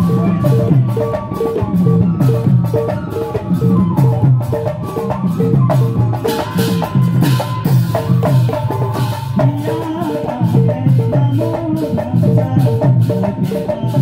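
Live Assamese dihanaam devotional music: barrel drums and a cymbal beat out a fast, steady rhythm, with a man's voice singing over it in the second half.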